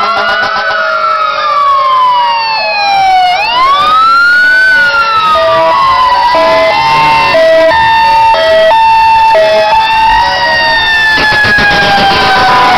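Police car and fire engine sirens sounding together as emergency vehicles pass: several overlapping wails rising and falling in pitch, joined in the middle by a two-tone hi-lo siren switching back and forth about every half second. Near the end a fire engine passes close and its engine noise swells under the sirens.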